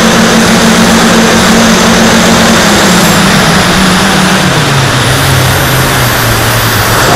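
Armattan 258 carbon-fibre quadcopter's electric motors and propellers, heard loud through its onboard camera's microphone over heavy wind and propeller-wash noise. The motor pitch steps down about halfway through.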